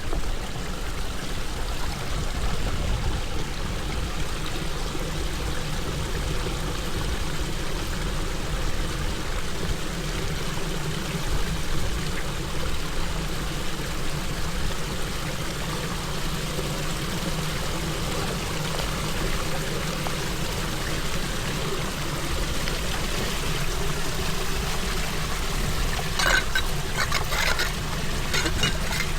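Floodwater pouring steadily into a storm drain, with a run of clicks and knocks in the last few seconds.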